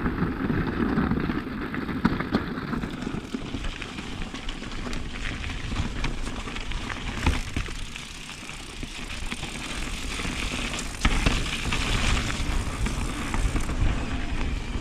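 Electric mountain bike (Norco Range VLT) riding down a rocky trail: tyres rumbling over rock and dirt with frequent knocks and clatter from the bike, with a hissier stretch about two-thirds of the way through.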